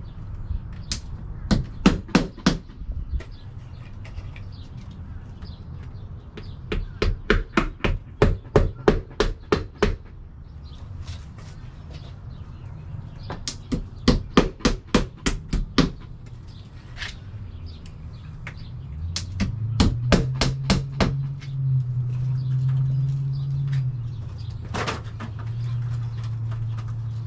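Hammer driving nails into a house wall while siding is installed: four quick runs of sharp blows at about four a second. A low steady hum sets in during the later part.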